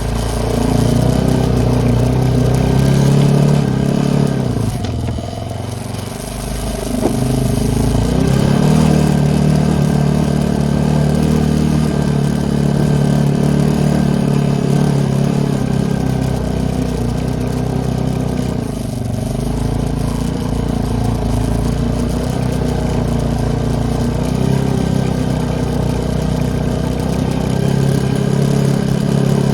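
ATV engine running under throttle while riding through fresh snow. The engine note eases off about five seconds in and again around twenty seconds, then picks back up.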